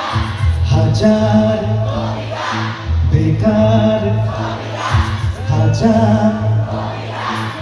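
Live band music played loud through a stage sound system: electric guitars, bass and drums under a male singer, with a steady beat.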